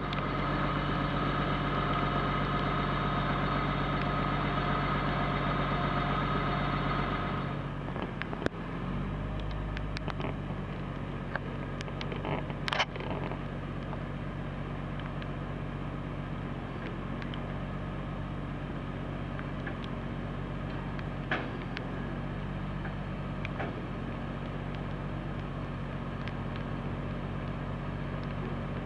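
Engine of the machine hoisting a Sherman Jumbo tank turret, running steadily and easing down to a lower, quieter note about seven seconds in. A few sharp metal clanks sound as the hanging turret and its chains meet the hull.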